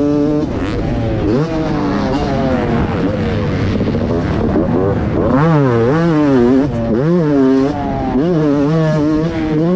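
Fantic XX250 two-stroke motocross engine heard on board, revving up and dropping back again and again as the rider works the throttle around the track, with the quickest run of rises and falls in the second half.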